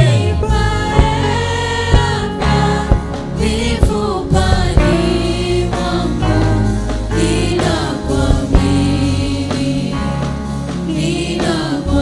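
Church choir singing a gospel praise song over band accompaniment, with regular drum hits.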